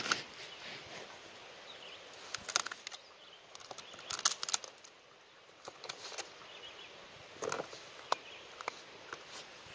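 A dog working its nose and mouth into the rotten end of a driftwood log: bunches of short crackles and scrapes, heaviest about two and a half, four and a half and seven and a half seconds in, with scattered single clicks between.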